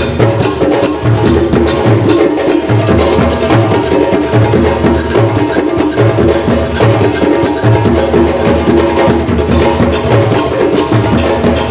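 African drum ensemble playing: djembes struck by hand and a tall drum beaten with sticks. A steady low beat repeats under a dense rhythm of sharp strikes.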